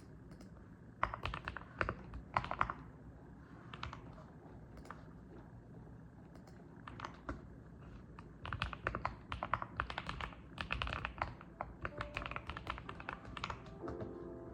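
Mechanical keyboard being typed on in bursts of keystrokes, with a poppy "ppong" sound: a quick flurry about a second in, a few scattered strokes, then a long dense run of typing from about eight seconds in.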